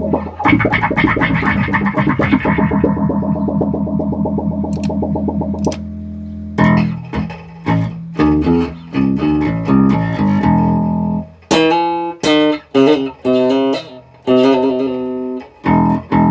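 Bass guitar played through a Source Audio Soundblox 2 Manta Bass Filter pedal. A held note pulses rapidly through the filter for about six seconds, then comes a run of short separate plucked notes, each with its tone shifting as the filter sweeps, and a held note again at the end.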